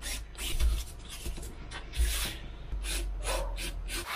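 Sandpaper rubbed over the edges of 6 mm Depron foam tail pieces in repeated short strokes, two or three a second, with a few light knocks of the pieces on the table.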